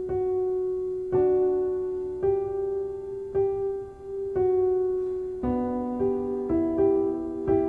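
Piano music: single notes struck about once a second, each ringing out and fading, growing busier with more notes from about five and a half seconds in.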